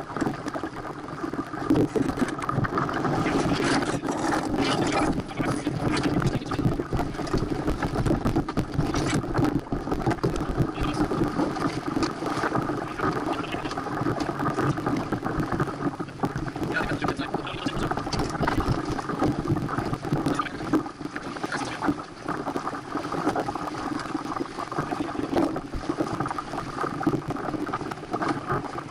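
Santana 525 sailboat under way: water rushing along the hull and wind on the action camera's microphone, a steady noise with scattered clicks and knocks.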